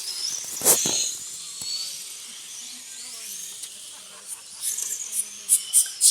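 Electric radio-controlled buggies racing, their motors giving a high whine that rises and falls in pitch as they pass. A loud thud comes just under a second in, and a quick run of sharp ticks and spits near the end.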